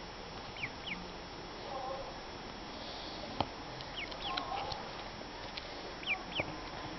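Ducklings peeping: scattered short, high chirps that slur in pitch, several coming in quick pairs. A single sharp click sounds about three and a half seconds in.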